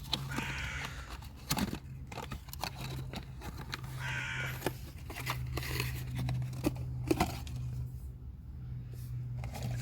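A crow cawing twice, about half a second in and again around four seconds, over a steady low hum and scattered small clicks and rustles of handling.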